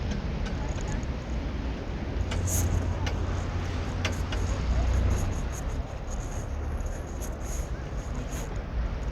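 Ferry engine running with a steady low rumble, mixed with wind buffeting the microphone as the boat moves along the river.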